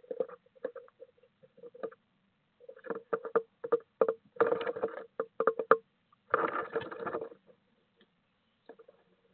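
Female blue tit scrabbling and fluttering inside a wooden nest box: bursts of claws scratching and tapping on the wood, with a denser flurry about six seconds in.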